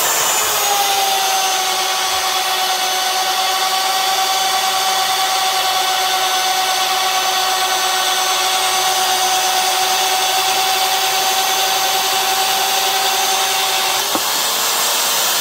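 850 W Rotabroach Element 30 magnetic drill running, its annular cutter boring into a steel guide rail. The motor's whine drops a little in pitch as the cutter takes load, holds steady with a higher whine alongside while it cuts, then rises back near the end as the load comes off.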